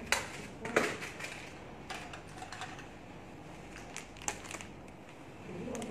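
A few sharp clicks and taps, the loudest about a second in, from a compact powder case and makeup brush being handled.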